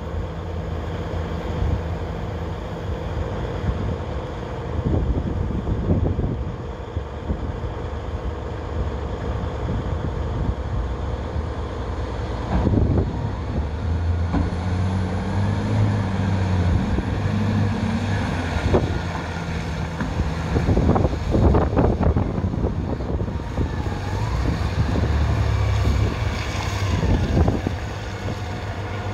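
Heavy diesel earthmoving machines running: a large excavator's engine idling steadily close by while a rigid dump truck drives up, its engine rising in pitch for a few seconds about halfway through.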